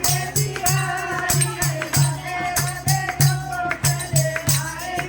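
Devotional kirtan music: voices singing over a steady drum beat and jingling hand percussion.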